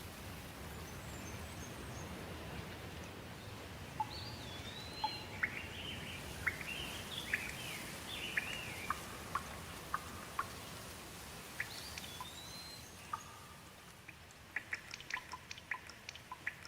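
Steady rain falling, with birds chirping over it from about four seconds in. Near the end the rain thins and separate drops drip.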